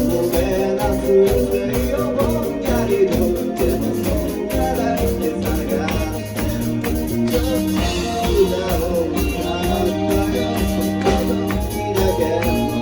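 Rock song playing, with a steady drum beat, bass and guitar.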